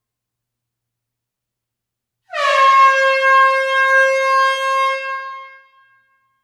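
A single long air-horn blast in a closed hall. It starts a little over two seconds in with a brief downward dip in pitch, holds one steady tone for about three seconds, then fades away.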